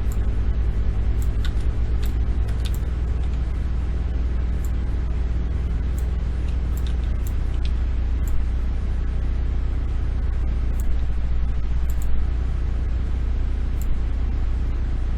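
Steady low hum in the recording's background, with a scattering of faint, sharp mouse clicks as decals are placed in the 3D model.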